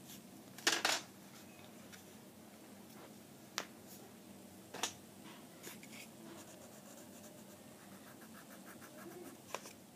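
Coloured pencil scratching on paper in quick, evenly spaced strokes near the end, with a few sharp clicks and taps along the way, the loudest a double knock about a second in.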